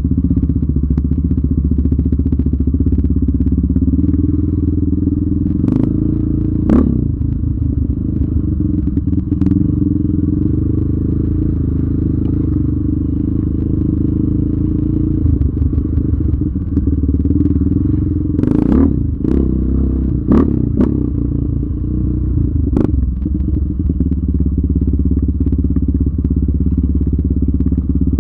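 Yamaha Raptor 700R ATV's single-cylinder four-stroke engine running steadily on a trail ride, its pitch shifting a little with the throttle. Several sharp knocks and clatters cut across it, two about six seconds in and a cluster about two-thirds of the way through.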